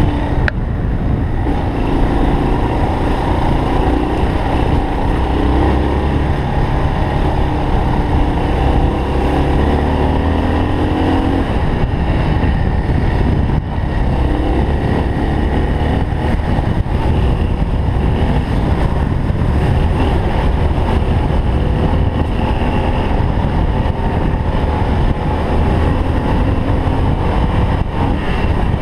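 Dual-sport motorcycle's engine running while riding on a dirt track, its pitch rising and falling with the throttle over a steady rumble.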